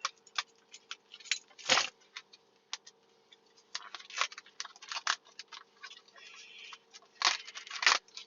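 Small toy packaging being handled and opened: a run of sharp clicks and taps with a few louder crinkling rustles.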